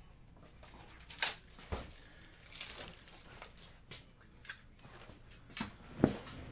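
Trading cards being handled and put into a sleeve and magnetic one-touch holder: soft rustling and scraping, with sharp clicks about a second in and near the end.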